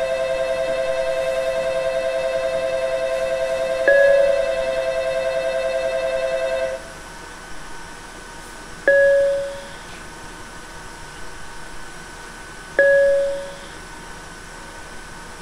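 Station signal sounds heard from inside a stopped train car: a steady electric ringing that cuts off about seven seconds in, and a single chime-like ding about every four seconds, each ringing out for about a second.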